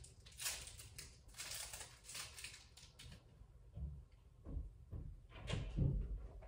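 Faint scattered taps and clicks of fingers on a phone, with a few soft low thumps from about four seconds in.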